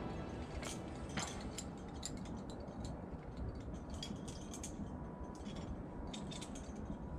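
Scattered light clicks and clinks of metal climbing gear, such as carabiners and a belay device, as rope is handled for a leading climber. A low steady rumble runs underneath.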